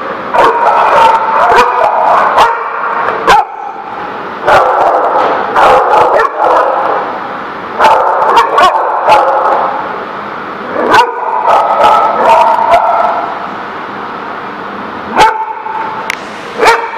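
Two dogs, a boxer and a bulldog-type dog, barking and yipping at each other in play. The noise comes in loud bouts of drawn-out, pitched yowls about every three seconds, with sharp single barks between them and a quick run of barks near the end.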